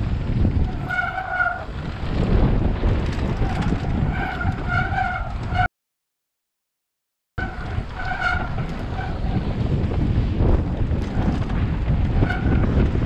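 Mountain bike descending a dusty dirt trail at speed: a rumble of wind on the microphone, tyres and rattling over the ground, with short whining tones from the bike a few times. The sound cuts out completely for nearly two seconds midway.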